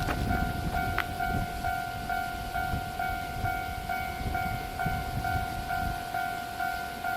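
Japanese railway level-crossing electronic warning bell ringing in a steady repeating pattern, over the rumble of a train running past with wheels knocking over the rail joints; a sharp click about a second in.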